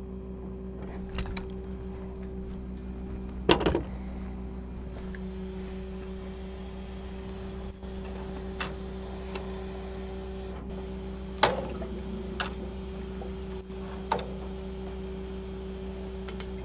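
Steady machine hum with a few held tones, broken by sharp metal-and-pipe clanks and knocks as fittings are worked at the wellhead. The loudest clank comes about three and a half seconds in, another near eleven and a half seconds, with smaller knocks between.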